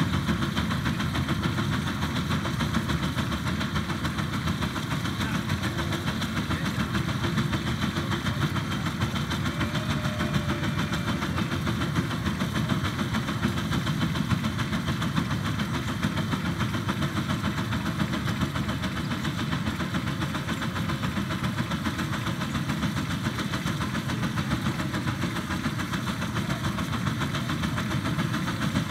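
Miniature Case steam engine running hard with a fast, steady exhaust beat, its exhaust blasting up the stack and throwing a column of sparks.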